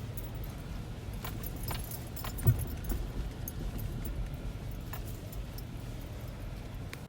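Car driving: a steady low rumble with scattered light clicks and jingling rattles throughout.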